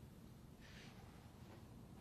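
Near silence: room tone, with one faint short breath a little over half a second in.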